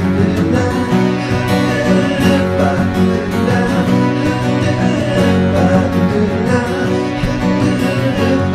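Background song in an instrumental break: guitar-led music with a steady beat.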